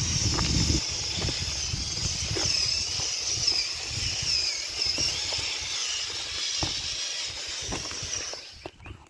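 Small electric motors of a LEGO Technic RC truck (BuWizz Buggy Motors) whining high, the pitch wavering up and down as it is driven over rocks, with scattered clicks and knocks of the plastic truck on the rocks. A low rumble sounds in the first second, and the sound cuts off suddenly near the end.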